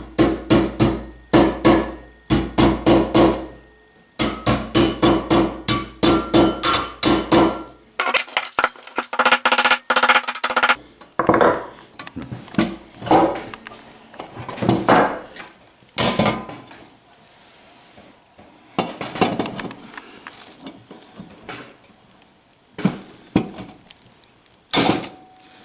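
Small hammer tapping nails into the tabs of a steel sheet-metal shelf, in two quick runs of light strikes, about four or five a second, with the steel ringing between blows. After that come scattered metal clinks and knocks as the steel box is handled.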